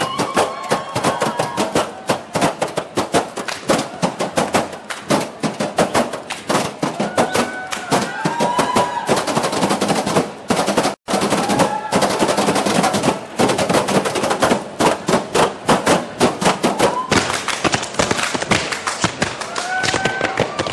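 Tap dancing: several pairs of tap shoes striking wooden tap boards in fast, dense rattling rhythms, with a few short shouts over them. The tapping breaks off for a split second about halfway through.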